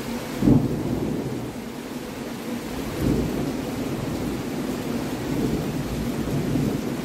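Thunder breaks suddenly about half a second in, then rolls on as a low rumble that swells again about three seconds in, over steady rain.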